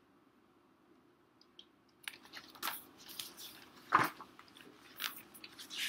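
A picture book being handled and its pages turned: a string of crinkling rustles and soft taps that start about two seconds in, the loudest about four seconds in.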